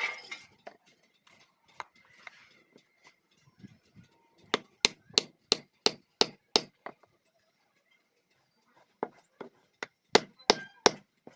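Sharp blows on wood, struck in quick runs of about three a second: a few scattered strikes, a run of about eight near the middle, and another run near the end, as a bamboo handle is worked to fit into a hammer head.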